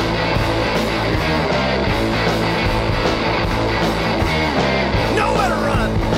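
Punk rock music: distorted electric guitar over a stepping bass line and a steady drum beat.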